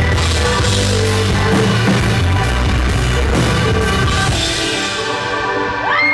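Live rock band playing the closing bars of a song: drum kit, guitar and keyboards together, with cymbals thinning out near the end. In the last second a high scream from the audience rises and holds as cheering starts.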